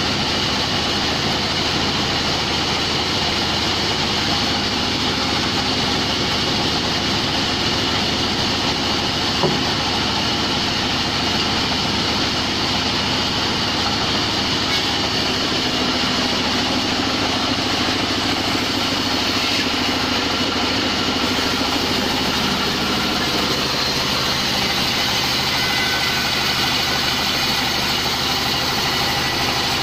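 Large log band saw and its belt drive running steadily, with one short sharp knock about nine and a half seconds in.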